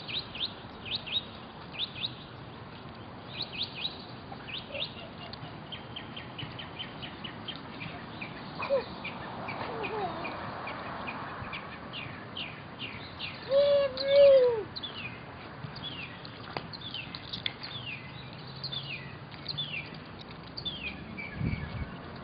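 Small birds chirping over and over, with many short, high notes that sweep downward. About fourteen seconds in, a louder and lower two-part call rises and falls.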